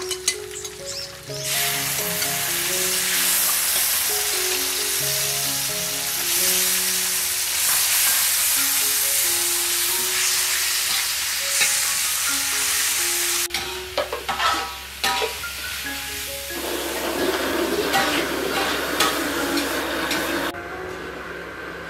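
Sliced beef and garlic frying in a hot wok, sizzling loudly while a metal spatula stirs it; the sizzle drops away about two-thirds through, followed by a few sharp scrapes and clicks of the spatula against the wok.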